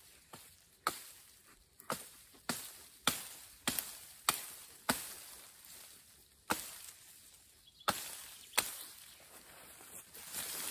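A hatchet chopping into leafy branches, about ten sharp blows. After the first, a steady run comes roughly every half second, then a pause and three more spaced-out strikes.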